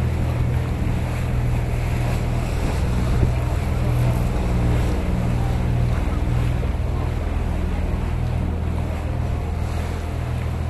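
Open canal tour boat's motor running with a steady low hum, under the wash of water along the hull and wind on the microphone.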